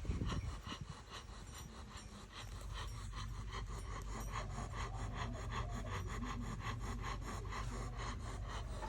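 Snoring, a continuous sound with a fast, even rattle in it.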